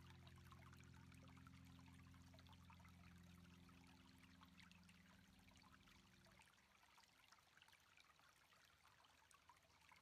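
Very faint wash of water from small waves on a sandy beach, a fine fizzing hiss with tiny crackles. Underneath is a low held hum of several steady tones that fades out about two-thirds of the way through.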